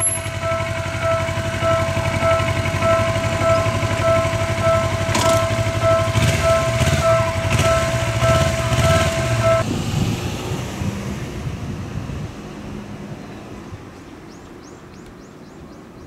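A Japanese railway level-crossing warning bell ringing in a rapid, steady repeating chime, which stops suddenly about ten seconds in as the barriers lift. Under it a low vehicle engine rumble fades away by about twelve seconds in.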